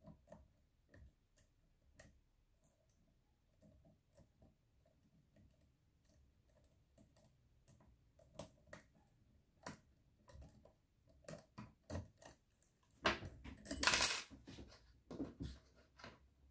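Lock picking on a Miwa DS lock cylinder held in a vise: faint, scattered metal clicks of the pick and tension wrench on the pins, growing louder and more frequent as the lock is opened. Near the end, a louder stretch of clattering and rustling.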